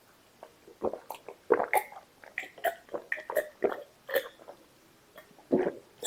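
Close-miked wet eating sounds of chewing mutton masala and rice: a string of short, irregular chews and lip smacks.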